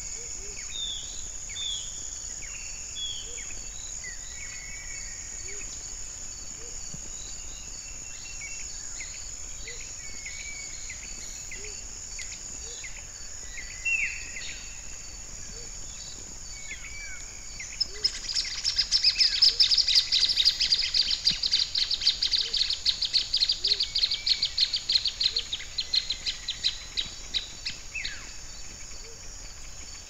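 Plain thornbird song: a loud run of rapid, sharp, repeated notes starting about halfway in, lasting about ten seconds and slowing toward the end. Under it runs a steady high insect drone with scattered soft chirps.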